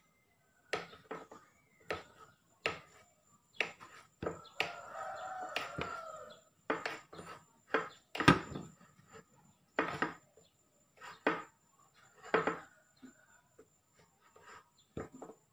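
A knife slicing down through a steamed cassava cake and knocking on the plate beneath, about a dozen short sharp knocks at uneven intervals, the loudest about 8 s in. A rooster crows once, for about a second and a half, some 5 s in.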